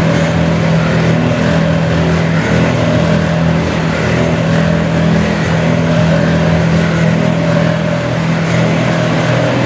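Oil expeller machine running under power: a loud, steady mechanical drone with a strong low hum.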